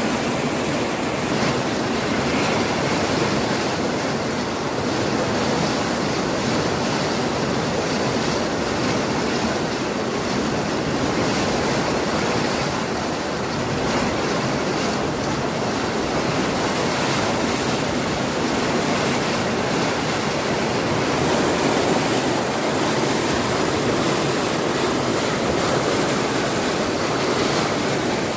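Floodwater rushing in a torrent: a steady, loud rush of water that keeps up without a break.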